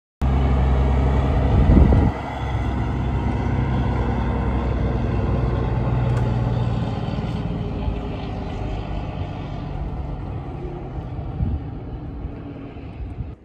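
Heavy lorry diesel engines running as trucks drive along the road: a steady low engine drone that swells briefly near the start and fades slowly over the second half.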